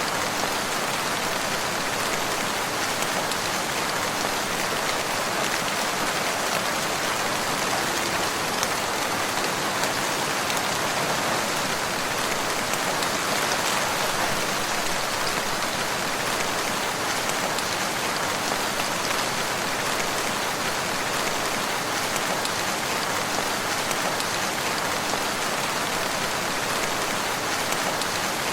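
Steady rain falling on surfaces, an even hiss of many raindrops at a constant level.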